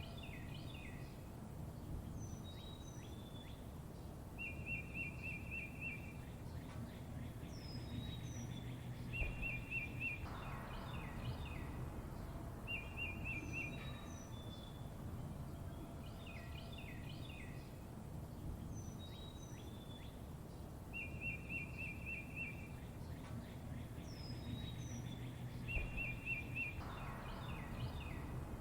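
Songbirds chirping over a steady low rumble: rapid trills, short high whistles that fall in pitch, and clusters of quick chirps. The same sequence of calls comes round again about every 16 to 17 seconds, a looped recording.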